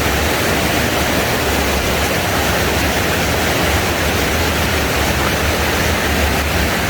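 Waterfall rushing, a loud, steady noise of falling water that does not change.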